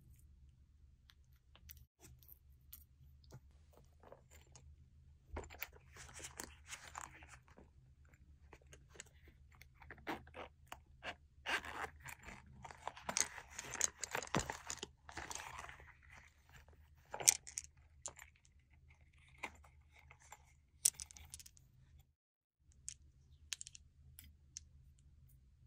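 Close-up handling of small craft items: scattered clicks and taps of clay charms and fingernails against a glass dish, with bursts of scratchy rustling. The longest, densest rasp comes in the middle, as the zipper of a silicone pop-it purse is pulled.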